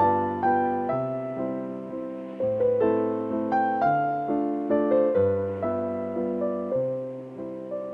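Relaxing background piano music: gently struck notes and chords, each left to fade before the next.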